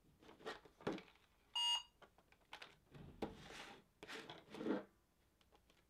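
A short electronic beep from a smartphone, about a second and a half in, among soft handling and rustling noises.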